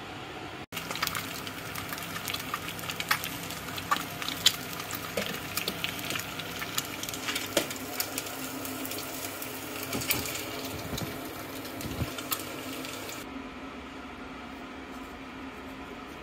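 Kitchen sounds at the stove: a run of small clicks and clatters from utensils and cookware over a steady hiss, cutting off suddenly about 13 seconds in to a quieter room tone.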